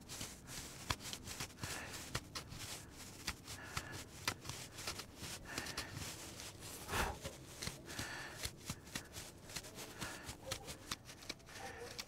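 Metal hook of a Swiss Army knife scraping and gouging wood in short, quick strokes, cutting the groove inside a wooden cup that will hold its bottom board. One louder, longer rasp comes about seven seconds in.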